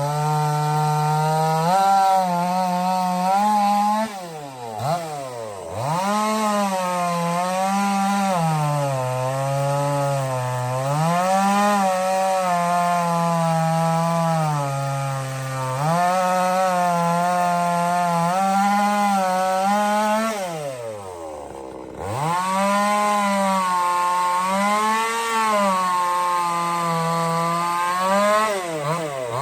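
Supmix 60 cc two-stroke gas chainsaw running at high revs while cutting wood, its pitch sagging and recovering as the load changes. Twice the throttle drops off, and the engine note falls steeply before revving back up.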